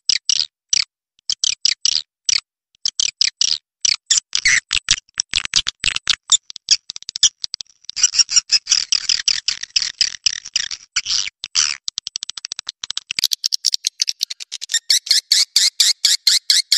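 Recorded swiftlet calls: rapid dry chirps and clicks in quick bursts with short gaps. About 13 seconds in, the sound switches to a brighter, even run of chirps at about six a second. This is a swiftlet lure call ('panggil inap') of the kind played to draw swiftlets into a nesting house to roost.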